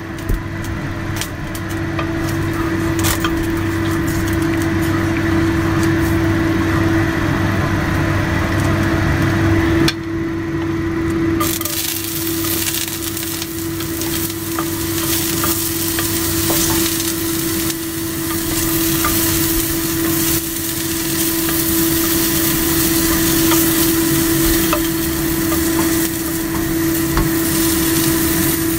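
Sliced ginger sizzling and frying in hot cooking oil in a nonstick wok, starting about a third of the way in and going on steadily. A steady hum runs under it throughout.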